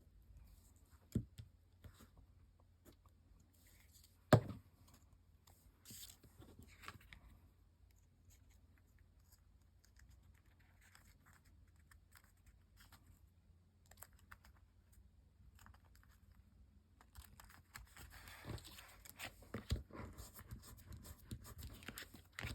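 Quiet handling of paper pieces: scattered rustles and small clicks, with one sharp knock on the work surface about four seconds in. Near the end the paper sounds grow denser, with tearing and crinkling.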